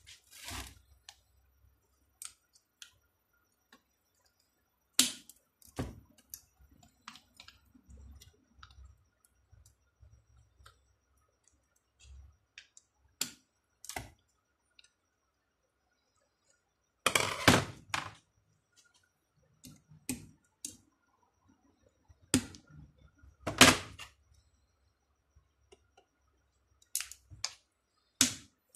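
A flat screwdriver clicking, scraping and knocking against the metal rectifier end of a Lexus LS430 alternator as it is levered at. Scattered sharp clicks and knocks, with a denser run of scraping a little past the middle and the loudest knocks about two-thirds of the way through.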